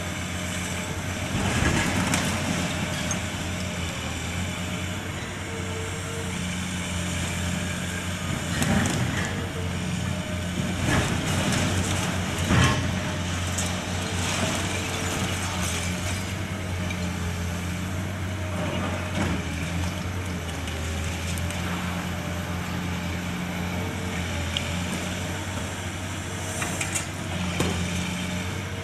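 Heavy demolition machinery with its engine running steadily, and irregular crashes and crunching of debris, the loudest about halfway through.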